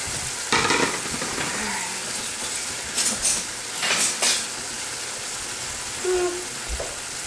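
Ground beef frying in a pot, a steady sizzle. A few brief rustling noises come about half a second in and again around three to four seconds in.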